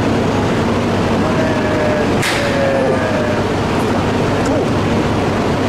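Automatic couplers of two Shinkansen trains (E2 and E3 series) meeting and locking, with a brief knock and a short hiss of air about two seconds in. Steady equipment hum and station noise run underneath.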